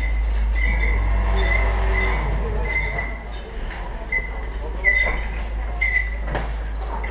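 Heavy truck's engine running with a low rumble. A steady mechanical whine about a second in, repeated short high squeaks, and a few knocks near the end.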